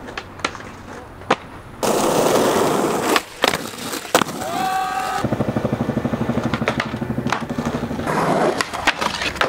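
Skateboard wheels rolling on concrete, with sharp clacks of the board popping and landing, across a few separate clips. A fast, even clatter of wheels runs through the middle.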